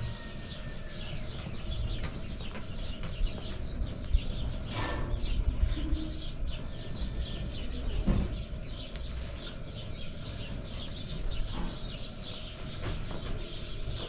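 Many small birds chirping rapidly and continuously, over a low rumble, with a couple of brief knocks about five and eight seconds in.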